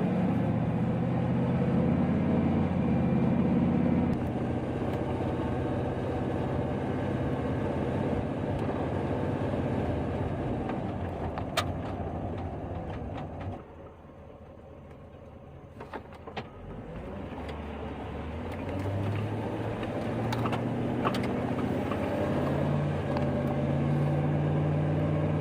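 Van's engine hum and road noise heard from inside the cab while driving. About 14 seconds in it drops quieter for a few seconds, then builds back up.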